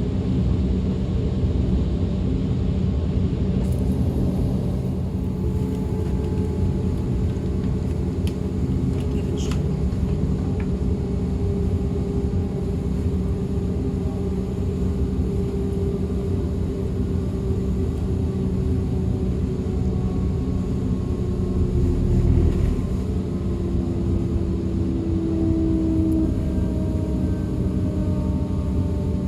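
A DB Class 425 electric multiple unit running, heard on board. There is a steady rumble of wheels on the track, and the traction motors' faint whining tones slowly slide in pitch.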